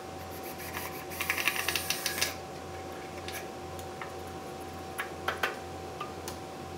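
Cordless drill-driver briefly driving a screw into a 2x4 stud frame: a rapid clicking run about a second long, starting about a second in. A few light knocks of the lumber being handled follow.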